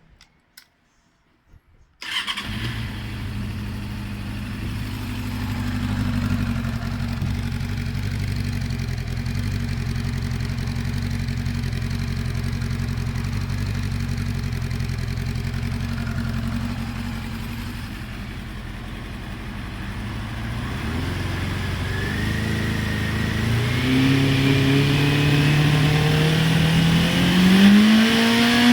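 Honda CB400SF's inline-four engine breathing through an aftermarket Akrapovic-style delta-shaped slip-on silencer with its inner baffle end cap removed. It comes in about two seconds in and runs steadily at idle. From about two-thirds of the way through, the revs climb gradually and in steps.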